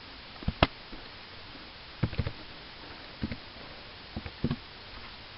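Computer keyboard keystrokes and mouse clicks: short sharp clicks, singly and in small clusters, as a few characters are typed into a field, over a faint steady hiss.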